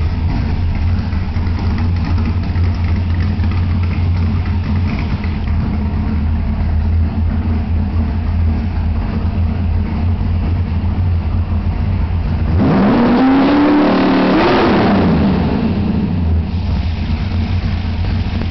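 1966 Ford Mustang engine idling steadily; about thirteen seconds in it is revved once, the pitch climbing and then sinking back to idle over about three seconds.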